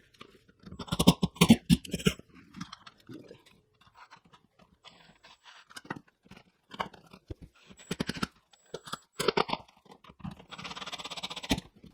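Sheathed electrical cable being pushed up through the knockouts into a wall-mounted electrical box: bunches of knocks and clicks from the box and cable, and a raspy scrape of about a second near the end as the cable slides through.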